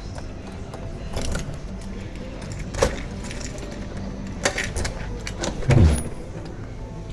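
Keys jangling with several sharp metallic clicks, and a heavy low thump about six seconds in.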